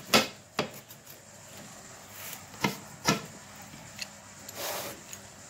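Pizza wheel cutter rolling through a baked pizza's crust and knocking against the pan underneath: a few sharp clicks and brief scraping strokes.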